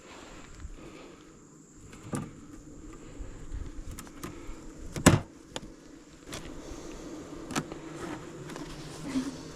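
Honeybees buzzing in a steady drone around an open hive, with several sharp clicks and knocks, the loudest about halfway through.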